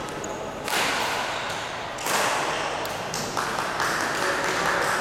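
Several sharp racket hits echoing in a large sports hall, about four in a few seconds, over a steady background hubbub.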